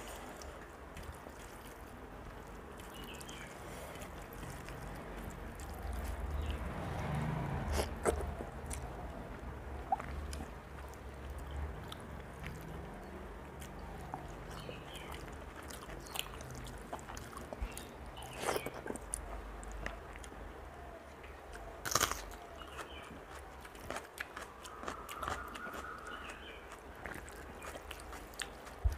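Close-up eating sounds of rice and dal eaten by hand: fingers mixing on a steel plate, then mouthfuls being chewed, with scattered sharp clicks, the loudest about two-thirds of the way through, over a low steady hum.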